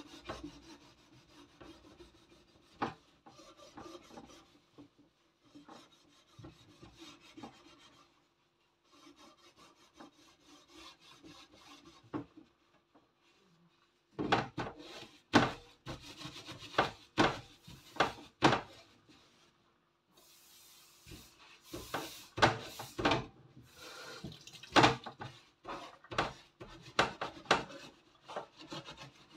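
Soap sponge scrubbing a wire oven rack hard to get the grime off. Faint scraping at first, then about halfway in brisk, loud back-and-forth strokes, about two a second, with a short pause.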